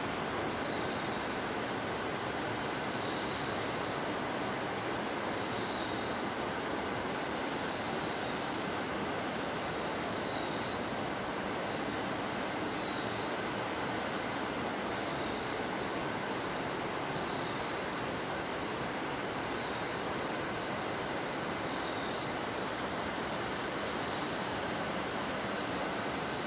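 The Bhagirathi river rushing over rocks in a steady, unbroken roar of white water, with a higher hiss that swells and fades every couple of seconds.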